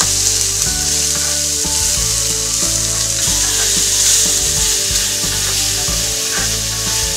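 Eel stir-fry sizzling steadily in oil in a nonstick frying pan on a portable gas stove, stirred and turned with wooden chopsticks.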